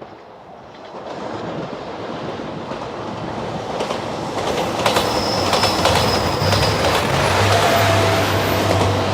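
JR Shikoku 2700 series diesel limited express train approaching and passing, its rumble growing louder. Wheels clatter over rail joints about halfway through, with a thin high squeal, and a low engine drone comes in near the end.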